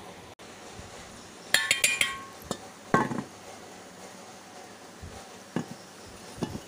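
Clinks and knocks on a stainless steel mixing bowl as sliced beef is handled in it: a quick cluster of clinks with a short metallic ring about a second and a half in, a duller knock about three seconds in, and a few lighter taps later.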